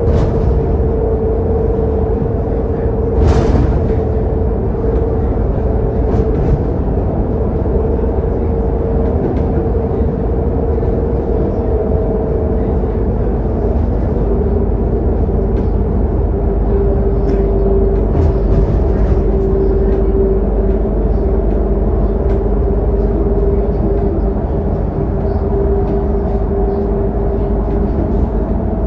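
Scania K280UD double-decker bus with a 9.3-litre five-cylinder engine, cruising at highway speed, heard inside the lower deck: a steady engine and road rumble with a whining tone that drops slightly in pitch about halfway through. A single sharp click a few seconds in.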